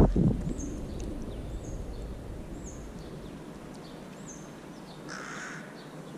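Feral pigeon wings clatter as one takes off low over the puddle at the start. Then come short high chirps from a small bird, about once a second for the first few seconds, and a harsh bird call about five seconds in.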